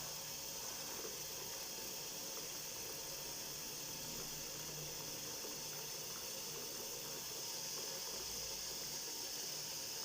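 Water running steadily, as from a tap filling a basin for hand-washing laundry.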